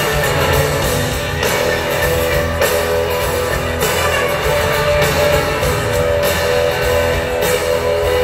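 Live rock band playing loudly: strummed guitar chords over drums, with a strong beat landing about once a second.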